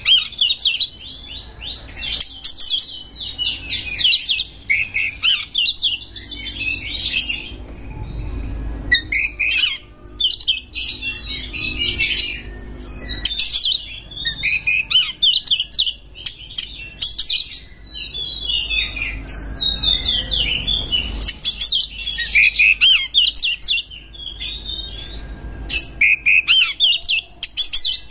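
Oriental magpie-robin (kacer) singing a fast, varied song of chirps, whistles and trills in bursts, with short pauses between phrases.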